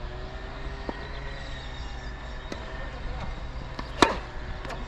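Strong wind buffeting the microphone as a steady low rumble, with a tennis ball struck sharply by a racket about four seconds in and a few fainter ball hits or bounces around it.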